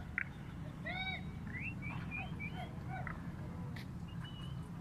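A string of short bird calls, chirps rising and falling in pitch, several in quick succession over a steady low hum.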